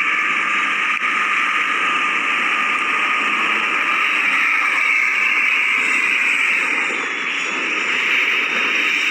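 A vehicle engine running steadily, a loud even drone with a faint whine that drifts slightly in pitch.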